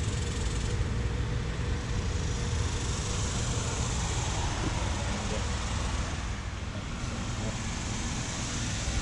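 Steady whir and low hum of running central air conditioner condensing units: outdoor fans and compressors.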